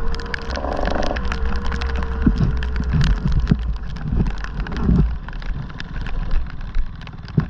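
A vehicle running with a steady low rumble, under many small clicks, knocks and rattles. A faint steady whine fades out about three seconds in.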